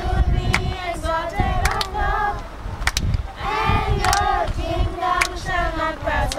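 A choir singing, the voices holding notes and gliding between them, with sharp clicks scattered through it and a low rumble underneath.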